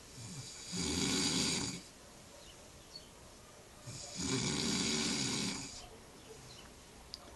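A person snoring: two loud snores, each a second or two long, about three seconds apart.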